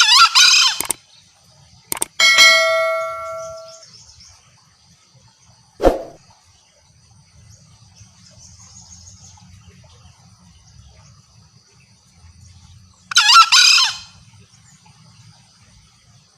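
Green junglefowl giving two short, harsh, hoarse calls, one right at the start and one about thirteen seconds in. About two seconds in, a sharp strike is followed by a bell-like ringing tone that fades over a second or so. A faint steady high insect drone runs underneath.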